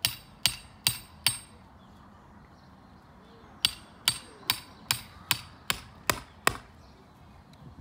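Hammer striking a metal ground spike, driving it into lawn soil: four blows about two and a half a second, a pause of about two seconds, then eight more at the same pace. Each blow is a sharp metallic clink with a brief high ring.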